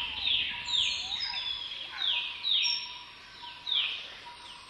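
A bird chirping: short chirps that slide down in pitch, coming about every half second in loose pairs, over a faint steady tone.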